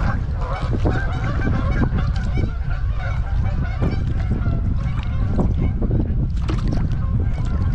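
American black ducks calling with harsh, honking quacks, most of them in the first couple of seconds, over a steady low rumble.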